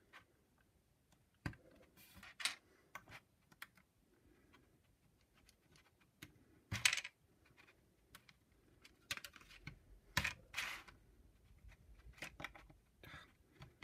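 Small plastic clicks and taps of LEGO minifigure pieces being handled, with hairpieces pulled off and figures moved on a baseplate. The clicks come at irregular intervals, with louder clusters about seven seconds in and again around ten seconds in.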